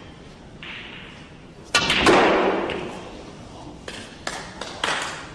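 A snooker cue strikes the cue ball, with sharp ball-on-ball clicks as the last red is potted about two seconds in. A burst of audience applause follows, fading, and a few separate claps come near the end.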